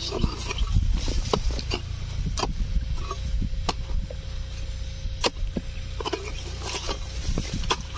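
A stick jabbing and scraping into the soil of a burrow among dry roots and brush, with dry twigs snapping and rustling: an irregular scatter of sharp clicks and scrapes over a low rumble.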